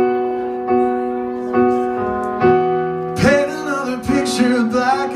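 Piano chords struck about once a second and left ringing between strikes. From about three seconds in, a voice sings over them.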